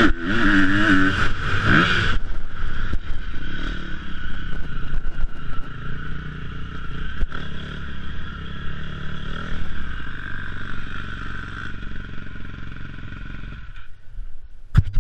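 Motocross bike engine revving hard and rising and falling in pitch for the first two seconds, then running lower and steadier under wind and track noise. About three-quarters of the way through it falls away, followed by a few sharp clicks near the end.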